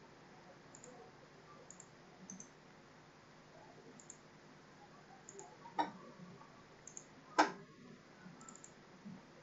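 Two sharp computer mouse clicks, about a second and a half apart, the second one louder, with a few faint ticks around them.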